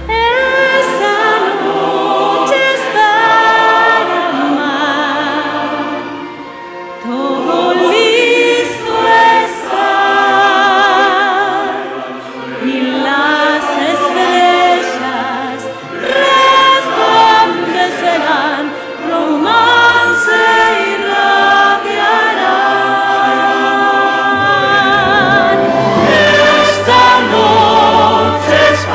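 A female soloist and a large mixed choir singing with wide vibrato. The singing dips briefly about six seconds in and again around twelve seconds.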